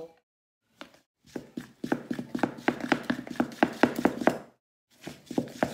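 Wooden spurtle stirring cake batter in a mixing bowl, knocking against the bowl in a steady rhythm of about four strokes a second, pausing briefly near the end.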